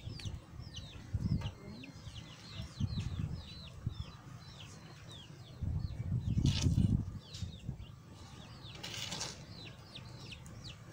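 Chickens' chicks peeping in a steady string of short falling chirps, several a second. Low thumps and rustles come and go under them, loudest about six to seven seconds in, with another short rustling burst about nine seconds in.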